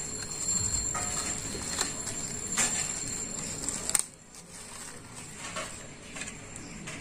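Thin plastic sheet rustling and crinkling as hands wrap it around a plastic ice-lolly mould and fasten it with a rubber band, with a few light clicks and taps. It drops quieter about four seconds in.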